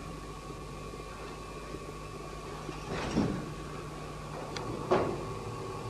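Steady electrical hum and hiss of an old recording, with two faint, brief soft noises about three and five seconds in.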